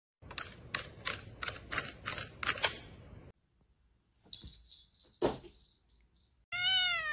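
A quick run of about seven sharp clicks over two and a half seconds, then a short high steady tone. Near the end a cat gives one falling meow.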